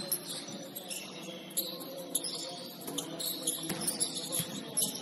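Basketball shoes squeaking on a gym floor in many short, high squeals during play, with a few sharp thuds and a steady murmur of voices in the hall.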